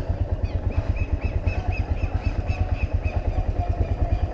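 Suzuki Yes 125's single-cylinder four-stroke engine running steadily at low revs as the motorcycle rolls slowly along. It is heard from a camera mounted on the bike, as an even, rapid putter.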